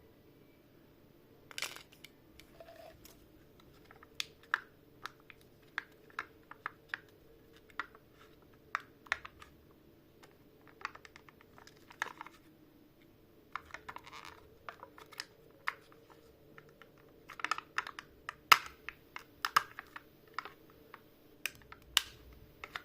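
Close-miked crunching of M&M's candy-coated chocolates being chewed: irregular sharp crunches, about one or two a second, with a denser, louder run of crunches about three-quarters of the way through.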